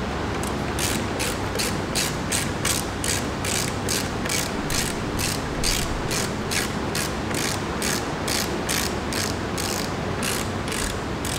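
Ratchet wrench clicking in a steady rhythm, about two strokes a second, while working the bolts of a wheelchair backrest mount.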